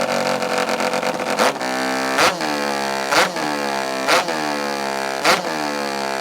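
Rotary-engined racing hot saw (a 74-horsepower timber sports chainsaw) running at a steady high idle. From about a second and a half in it is blipped five times, the pitch sagging and climbing back between revs, as it is warmed up before a timed cut.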